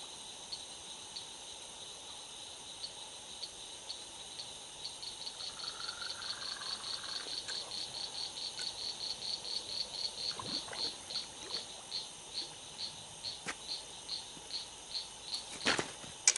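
Fishing reel clicking under a fight with a big snapping turtle. The ticks speed up to about four a second midway, then slow again, over a steady chorus of night insects. A sharp knock just before the end is the loudest sound.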